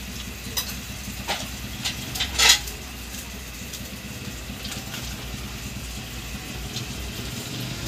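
Fingers tearing apart and handling cooked squid in sauce: a few short, scattered sounds, the loudest about two and a half seconds in, over a steady low background hum.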